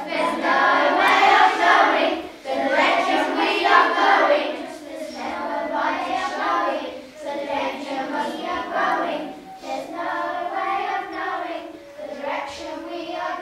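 A group of children singing together in unison, in phrases a second or two long with short breaths between them.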